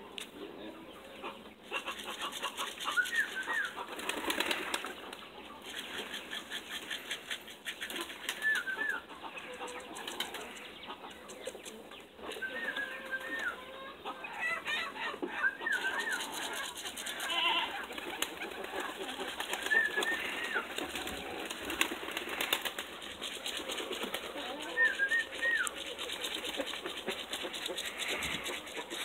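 Pigeons' wings flapping in bursts of rapid fluttering as they take off and land around a loft roof. A short, high bird call sounds now and then, about seven times.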